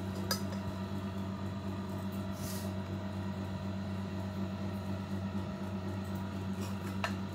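Steady low hum in a small room, with a few light clicks and a brief soft scrape of a steel ladle against an aluminium pot as cooked mince is scooped into a bowl.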